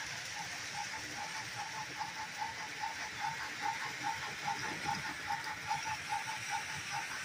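Battery-powered toy train's small electric motor and gearbox running as it drives along its track: a steady whirr with a short, even chirp about four times a second.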